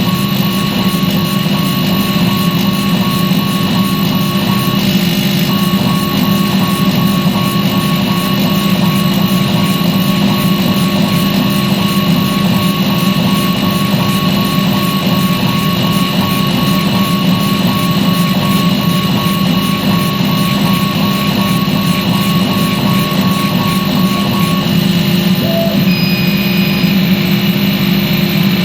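Laser fume-extraction fan running steadily, a loud continuous hum with a steady high whine over it, drawing the laser's smoke out through the upgraded filtration system. A thin tone in the mix stops a few seconds before the end.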